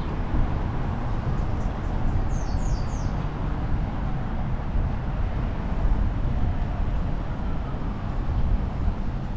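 Steady low rumble of city street ambience, with traffic noise. About two seconds in, a small bird gives three quick, high, falling chirps.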